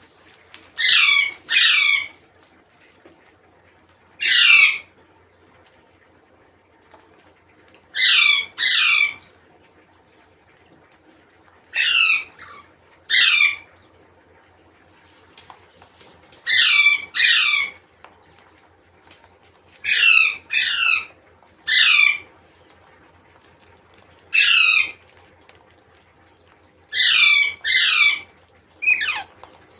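A parrot giving loud, harsh squawking calls, each a short falling screech, mostly in pairs, repeated every few seconds.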